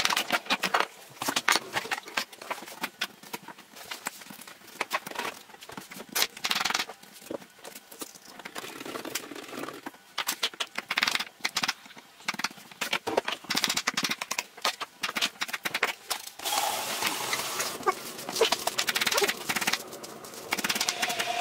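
Kitchen knife chopping carrots on a wooden cutting board: runs of quick, sharp knocks with short pauses between them.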